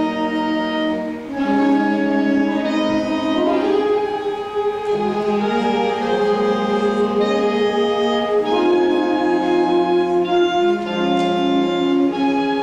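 Small school wind band of flutes, saxophones and brass playing a slow piece in held chords that change every second or so.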